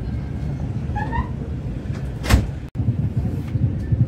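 Low, steady rumble of a passenger train, with two short rising squeaks about a second in and one sharp knock just after two seconds. The sound breaks off abruptly and picks up again as the rumble of a train running along the track.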